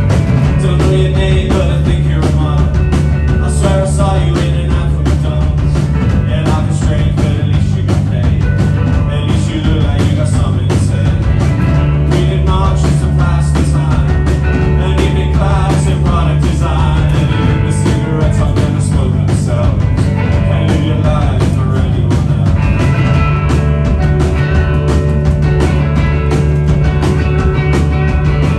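Rock band playing a song live, drum kit and guitars together at full volume with a steady beat.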